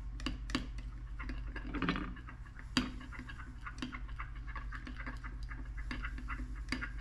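A stir stick clicking and tapping against the sides of a glass measuring cup while brown colorant is stirred into liquid soft-plastic bait mix: irregular light ticks, several a second, with one sharper knock a little before the middle. A steady low hum runs underneath.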